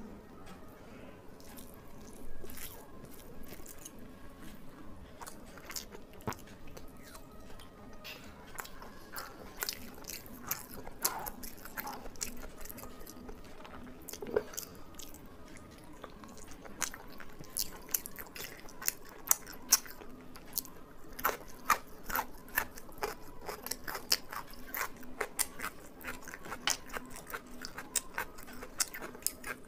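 Close-miked ASMR eating sounds: a person chewing and biting food, with many short crunches and wet mouth clicks, coming thicker and louder in the second half.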